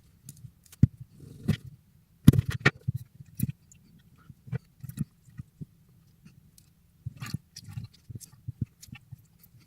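Irregular small clicks, taps and squelchy knocks of a lemon being cut into smaller pieces and squeezed by hand over a cup.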